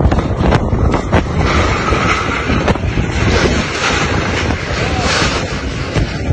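Hurricane-force wind buffeting the microphone with a heavy, constant rumble. A hissing gust of wind-driven rain swells in the middle and fades, and a few sharp knocks come in the first second or so.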